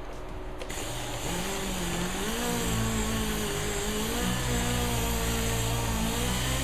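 Electric drill spinning a foam pad on a plastic headlight lens, working in plastic cleaner. The drill starts about a second in and runs steadily, its motor pitch wavering up and down.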